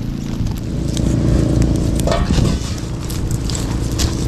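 A small engine running steadily, getting louder about a second in.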